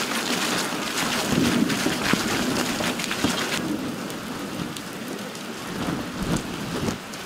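Heavy rain pouring onto flooded pavement and puddles, a steady hiss of falling water. A little past halfway the hiss becomes softer.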